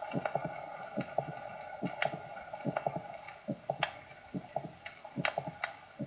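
Recorded heart sounds heard through a stethoscope: each beat a quick group of three short sounds (first heart sound, a mid-systolic click, second heart sound), a little faster than one beat a second. It is a systolic click of no known significance, heard along the lower left sternal border. A steady hum of the old recording lies underneath.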